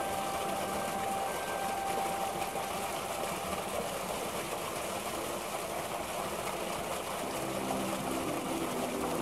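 Tubewell water gushing steadily from its outlet pipe into a brick channel, with the pump machinery running.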